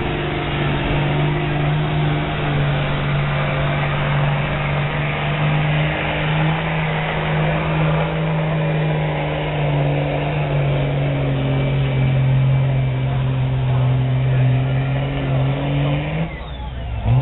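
A 2002 Dodge pickup in a modified truck-pull class, its engine held at high revs under full load as it drags a weight-transfer sled. The engine note holds steady, sags somewhat partway through as the load builds, then drops off sharply near the end as the truck stops and the driver lets off.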